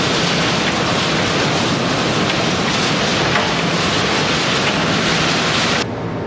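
Loud steady rushing noise of waste-processing plant machinery running in a large industrial hall. Near the end it drops abruptly to a quieter steady noise.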